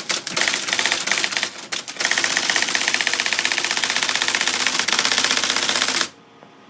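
IBM Memory Typewriter Model 50 typeball (Selectric-type) mechanism printing. It starts with an uneven burst of strikes, then about two seconds in settles into a fast, even run of strikes lasting about four seconds as it types a line of letters and digits, and stops suddenly near the end.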